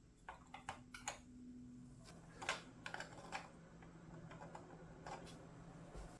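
A dozen or so light, irregular clicks and taps of small hard parts being handled, over a faint steady hum.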